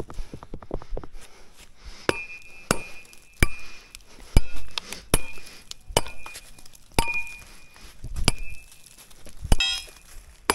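A metal digging tool striking stony ground over and over. Each blow is a sharp clink about once a second, and several ring briefly like struck metal.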